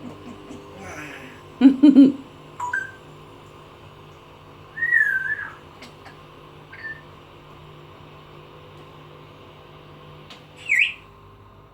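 A pet parrot going through its repertoire of mimicked sounds: a louder, low-pitched call about two seconds in, then a string of short separate whistles, one wavering whistle about five seconds in and a rising whistle near the end.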